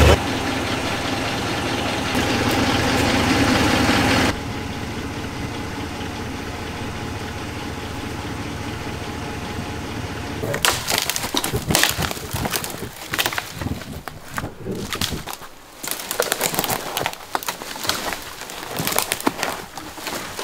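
Ram 1500 Rebel's 5.7 Hemi V8 idling, cutting suddenly to a quieter steady hum about four seconds in. From about halfway there are irregular cracks and snaps of twigs and brush breaking.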